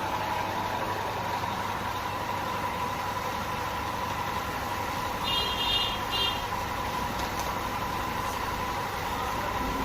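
Steady mechanical background hum with a constant tone, and a short high beep in two parts about five seconds in.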